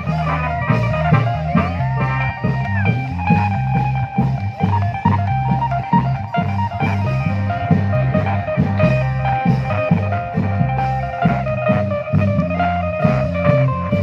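Thai klong yao procession music: drums keep a fast, steady beat under a stepping bass line and a plucked lead whose notes bend up and down.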